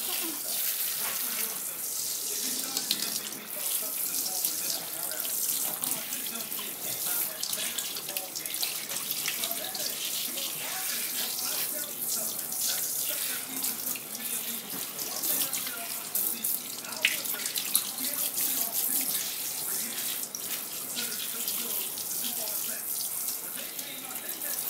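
Pull-down kitchen faucet sprayer running steadily, the spray splashing onto a wet puppy's coat and into a stainless steel sink.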